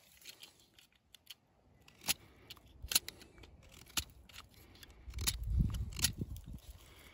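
Hand pruning shears snipping twigs, several sharp cuts about a second apart, with a low rustling rumble about five seconds in.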